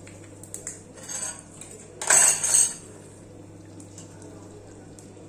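Kitchen pots and utensils being handled: light clinks, then a louder clatter about two seconds in.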